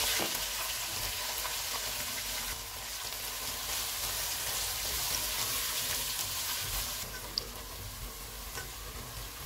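Sliced onions sizzling as they fry in hot oil in a nonstick pot, stirred with a plastic spatula. The sizzle eases a little about seven seconds in, and there is one light click shortly after.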